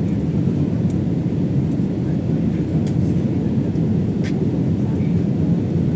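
Steady low roar inside an airliner's passenger cabin on final approach: engine and airflow noise at a constant level.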